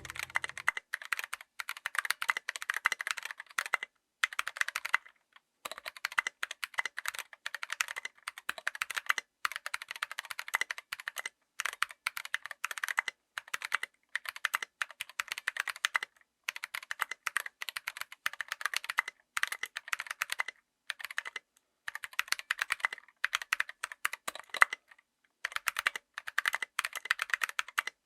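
Mechanical keyboard with stock, unlubed Kailh BOX Crystal Royal tactile switches being typed on quickly: dense runs of keystroke clacks broken by brief pauses.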